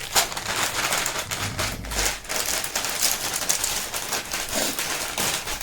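Crisp food being bitten and chewed close to the microphone: dense, irregular crunching.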